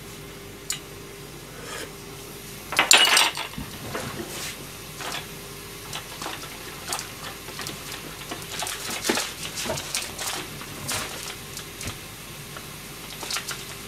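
Tofu in sauce simmering in a frying pan over a gas burner, with scattered small pops and ticks. About three seconds in comes a loud clatter of kitchenware.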